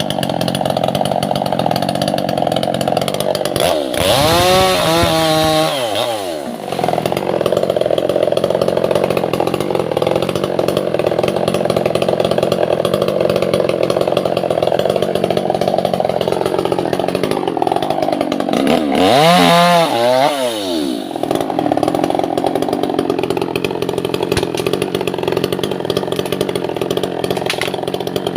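Two-stroke chainsaw running under load, cutting albasia (sengon) wood. Twice, about four seconds in and again near twenty seconds, the engine pitch swings up and back down before it settles into a steady cut.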